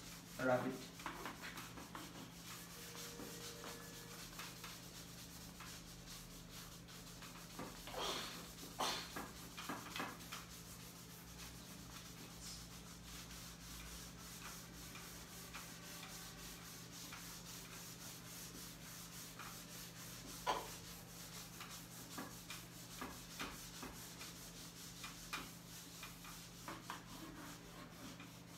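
Whiteboard being wiped clean, a faint rubbing and scuffing across the board surface, with a few light knocks about a third of the way in and one more past the middle. A steady low hum lies underneath.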